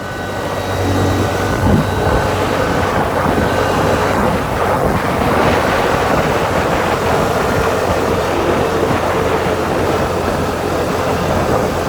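CFMoto four-wheeler (ATV) engine running steadily under way.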